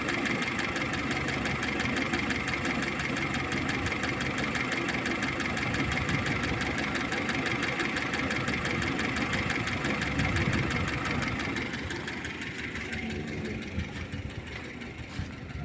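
VAZ-2101 (Zhiguli 'kopeyka') engine idling cold, with a fast, even ticking from the valvetrain that the owner puts down to a worn, second-hand camshaft. The sound grows quieter about twelve seconds in.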